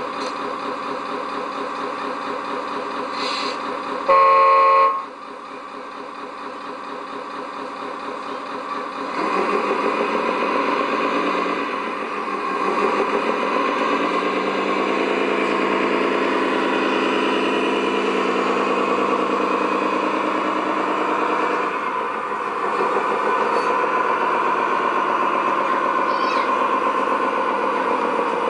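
Simulated V8 engine sound from the sound module of a Tamiya Scania R620 RC truck: the engine idles, a horn blasts for about a second some four seconds in, then the engine note grows louder and revs up from about nine seconds in as the truck drives.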